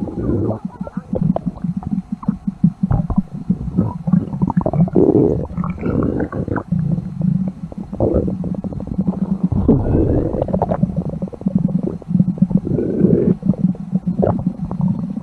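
A stomach gurgling and rumbling without a break: low churning growls with many quick pops and short squeaky rises in pitch.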